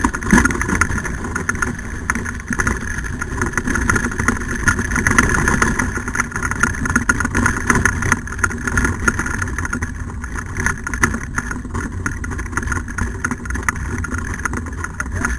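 Wheeled dog kart pulled by a team of malamutes, rolling along a dirt trail with a steady rumble and constant small rattles from the frame and wheels.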